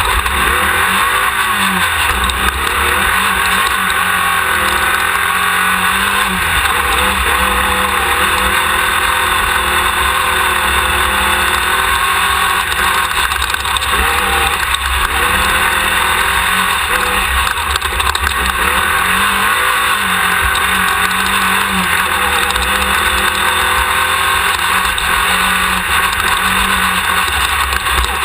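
Class 1600 off-road race buggy's air-cooled VW 1600 cc flat-four engine running hard at racing speed, its revs rising and falling again and again, over a constant rush of wind and drivetrain noise.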